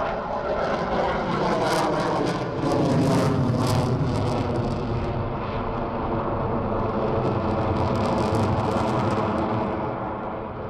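Jet noise from an F-22 Raptor flying overhead, its twin Pratt & Whitney F119 turbofans making a steady rumble with crackle. The crackle is loudest about two to four seconds in and the noise eases slightly near the end.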